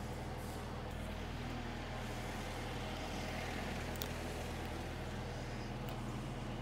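Diesel engine of earthmoving equipment running steadily at a constant speed, with a couple of faint clicks.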